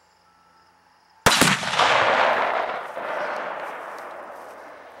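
Tannerite exploding: one sharp, very loud boom about a second in, followed by a rolling echo that fades away over the next three seconds.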